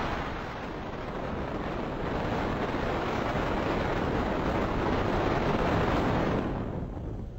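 Wind rushing over the microphone at the open window of a moving car, a steady noise with the car's road noise underneath.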